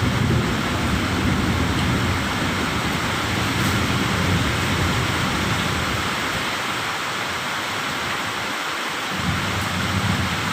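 Heavy rain falling steadily during a thunderstorm, with a low rumble of thunder that comes in suddenly at the start, fades out about eight seconds in, and swells again near the end.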